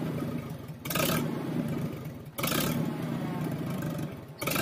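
Engine of a piece of heavy equipment running and revving while working, with some clatter; the sound changes abruptly three times.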